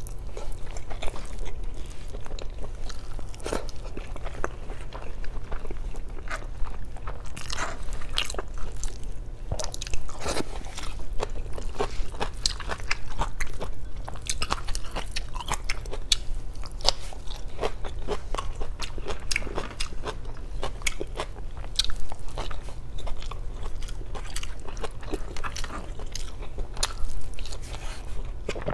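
Close-miked eating sounds of a person chewing and biting chicken adobo with rice, taken by hand: a dense, irregular run of mouth clicks and chews over a steady low hum.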